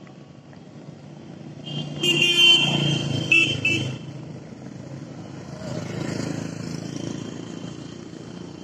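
Road traffic passing, with a vehicle horn sounding about two seconds in and two short toots just after. Another vehicle passes about six seconds in.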